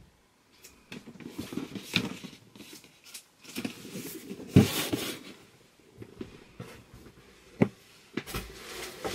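Cardboard boxes and packaging being handled and moved about: rustling and scraping, with a few sharp knocks, the loudest about halfway through.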